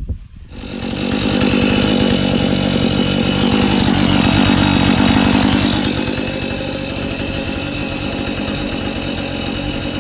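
Chainsaw running at full throttle, cutting through the tree's trunk to fell it. It comes up to speed about a second in and runs steadily, a little quieter after about six seconds.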